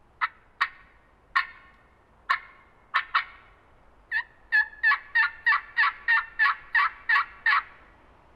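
Turkey yelping close by: a few spaced, single yelps, then a quick run of about a dozen yelps at three or four a second.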